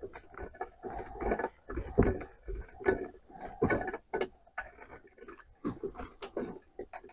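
Slip-joint pliers turning a new steel bar stud into the die-cast aluminium crankcase of a Chinese-made chainsaw: a run of short metallic clicks and scrapes, two to three a second, as the pliers bite and turn the stud.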